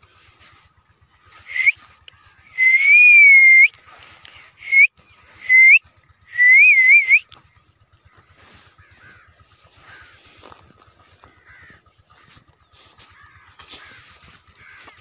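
Loud whistling calls: three short upward-sweeping whistles and two longer wavering ones, bunched between about a second and a half and seven seconds in. A faint steady high tone runs underneath.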